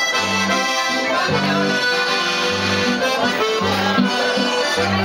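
Piano accordion playing a lively tune, with a bass that alternates between two notes, backed by an electric guitar.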